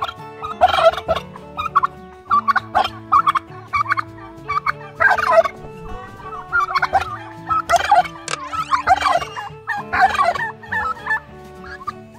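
Domestic tom turkey gobbling in repeated bursts, one every second or two, while strutting in display with its tail fanned.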